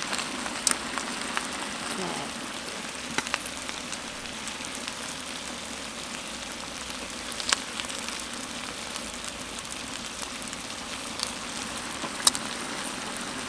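Steady sizzling from a large steaming aluminium pot of chicken legs and vegetables, broken several times by sharp clinks of metal tongs against the pot and a steel bowl.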